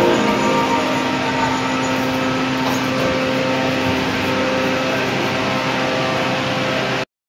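Steady mechanical din of factory machinery, a constant hum over a wash of noise, cutting off suddenly near the end.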